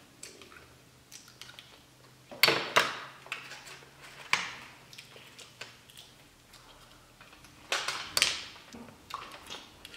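Mussel shells clicking and cracking as they are handled and pried open for eating, with soft eating sounds; a few sharp clicks, loudest about two and a half seconds in and again near eight seconds.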